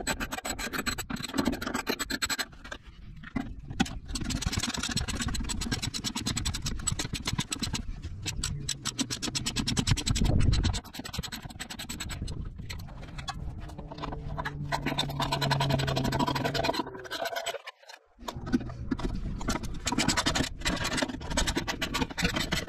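Hand tools on tight 10 mm bolts: a ratchet wrench clicking rapidly, with metal scraping, stopping briefly near the end.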